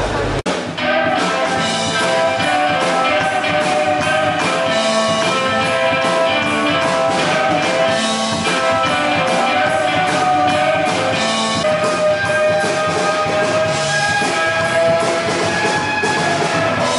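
Rock music with electric guitar and drums, starting abruptly about half a second in.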